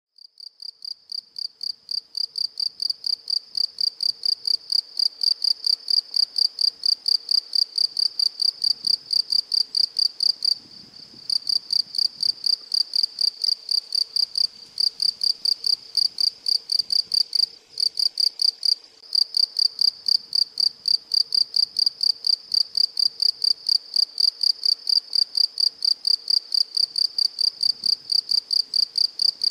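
Cricket chirping: a steady, high-pitched pulsing chirp of about three pulses a second. It fades in over the first few seconds and pauses briefly twice.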